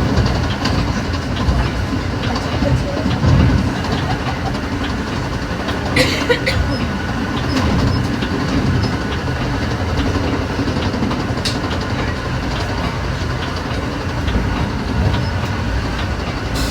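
Metra BNSF commuter train running at speed, heard from on board: a steady rumble of wheels on rail with light clicks, and a short sharp clatter about six seconds in.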